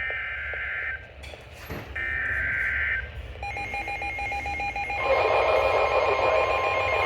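Emergency Alert System header broadcast over the radio: two bursts of warbling data tones, each about a second long, then a steady electronic alert tone starting about three and a half seconds in and getting louder about five seconds in, marking the start of a new severe thunderstorm warning.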